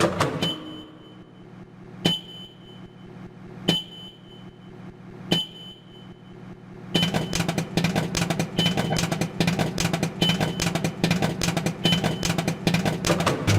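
A beat made of microwave-oven samples: the oven's running hum, with a click and a short high beep about every second and a half. About seven seconds in, dense popcorn popping joins and keeps going with the hum and beeps.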